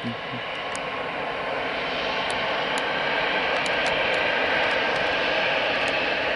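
Airliner engine noise, a steady rushing sound that grows gradually louder as the aircraft draws nearer, with a few faint high ticks.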